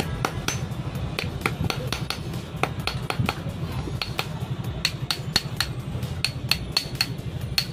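Hammer tapping a small steel part of a starter motor's Bendix drive held on a concrete slab: quick metallic taps, about three a second, each with a short ring, thinning out briefly a little past the middle.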